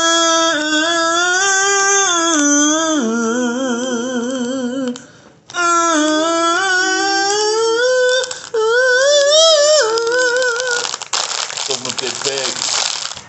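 A man singing two long phrases of drawn-out notes with a wide wobble in pitch. Near the end, the crinkle of a plastic snack bag being pulled open.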